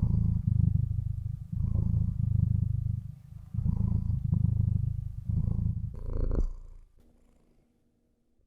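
Domestic cat purring close to the microphone, a deep rumble that swells and breaks in cycles of about one to two seconds with each breath. It stops about seven seconds in.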